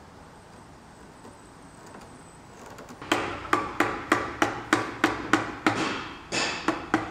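A mallet knocking on a clamped walnut table frame, a quick run of sharp blows about three a second starting about three seconds in, with a brief pause near six seconds, seating the frame pieces into place.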